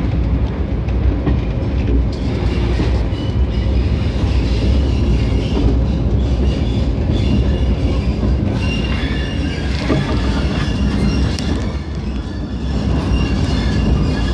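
Railway brake van wheels running over the track, a loud steady rumble with a few clicks over the rail joints. High-pitched wheel squeal comes in from about five seconds in and keeps sounding on and off.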